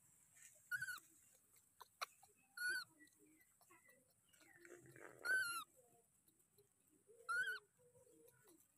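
Infant macaque giving four short, high, squeaky calls about two seconds apart, each rising briefly and then falling in pitch.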